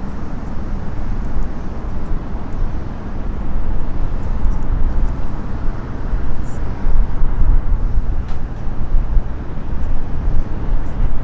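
Wind buffeting the microphone: a low, uneven rumble that rises and falls irregularly.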